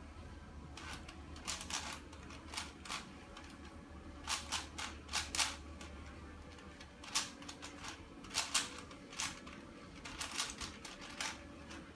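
Plastic twisty puzzle of the Rubik's cube type being turned by hand: sharp plastic clicks and clacks coming in short, irregular runs.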